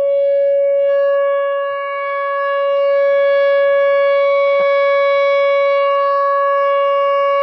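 Outdoor civil-defense warning siren sounding a steady, unwavering tone during a test, with a brief dip in loudness near two seconds in before it swells back up.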